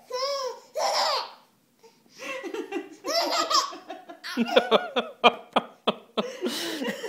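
A baby laughing hard in repeated bursts, with a run of quick laugh pulses in the middle.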